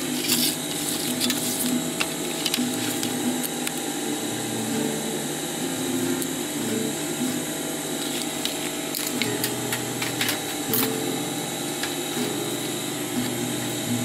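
A steady whirring drone, with a few light clicks and taps from a plastic triangle ruler and pen handled on a cardboard sheet.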